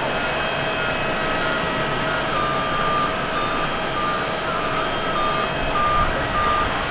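Jet engines of a Boeing 787-9 climbing out after takeoff, a steady rushing noise with a faint whine. From about two seconds in, a high beep repeats about twice a second.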